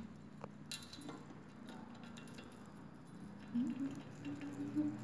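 Pet squirrel biting and scrabbling at a padded bar, giving a few sharp clicks early on and scattered faint ticks. A brief low voice near the end.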